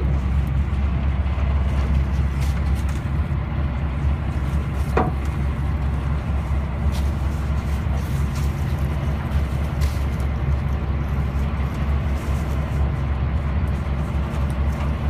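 Boat engine running at a steady low drone, heard on board, with a short high-pitched sound about five seconds in.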